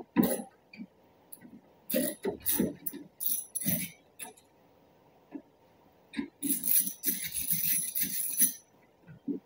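Scattered clicks and knocks of a hand tool and plastic trim as a truck headlight is worked loose. Near the end comes a metallic jingling rattle lasting about two seconds.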